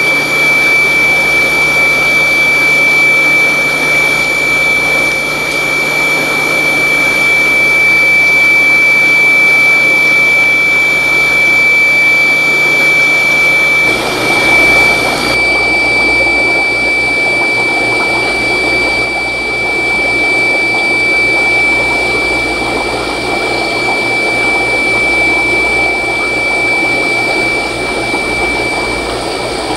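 Aquarium pump running: a steady rushing hum with a constant high whine. The hum changes a little about halfway through.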